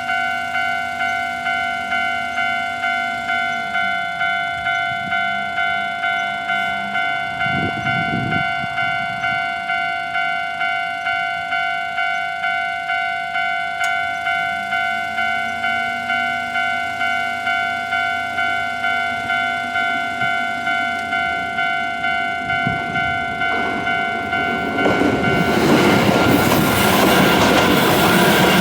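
Japanese level-crossing warning bell ringing steadily, a repeated electronic ding about twice a second. About 25 seconds in, a train arrives and passes over the crossing, its wheels and track noise rising into a loud rush that drowns the bell.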